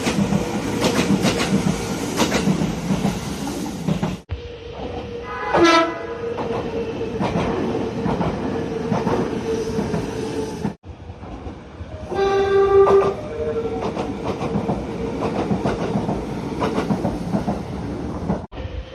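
Nagano Electric Railway express trains running, with wheels clattering on the rails and a steady tone over the running noise. The train horn sounds twice: a short blast about five and a half seconds in, and a held blast of about a second past the middle.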